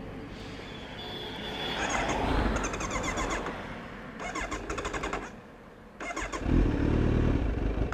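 Kawasaki Z900 inline-four being cranked on its electric starter in two tries, about four seconds in and again near the end, after the tank has run dry of petrol.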